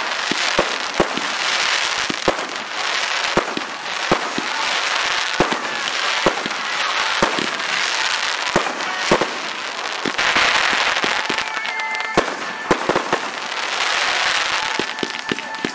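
Fireworks display: sharp bangs of bursting aerial shells and rockets, about one or two a second, over a continuous hiss and crackle of burning stars.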